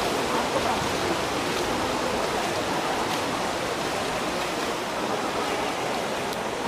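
Steady rushing wash of noise in an indoor swimming pool hall during a race, with swimmers splashing through the final freestyle strokes to the wall.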